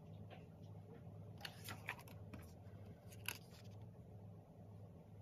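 Pages of a glossy magazine being turned by hand: a few soft paper crinkles and swishes over a faint steady low hum.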